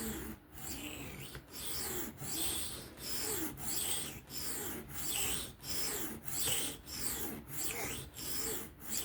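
Steel knife blade of a Kizer Mini Towser K (3V steel) being stroked back and forth freehand across a sharpening stone, a rasping scrape about twice a second.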